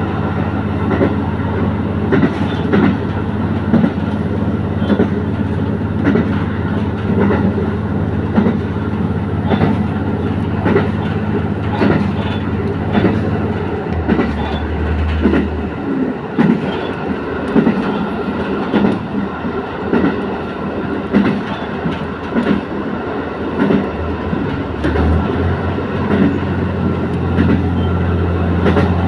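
Diesel railcar running along the line, with a steady engine drone and the clickety-clack of wheels over rail joints about once a second. The engine's low hum changes partway through and settles back near the end.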